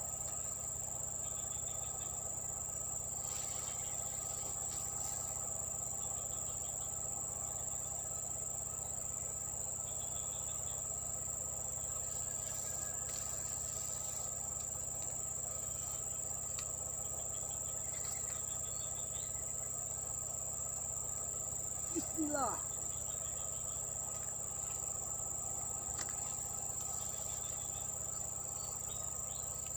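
Insects, crickets, keeping up a steady high-pitched drone, with faint small chirps now and then. About 22 seconds in a brief sweeping sound rises and falls over it.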